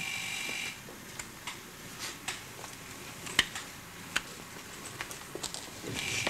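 An electric buzzer sounding with a steady buzz that cuts off less than a second in and starts again near the end. In between come scattered sharp clicks and knocks on a hard floor, the loudest a bit past the middle.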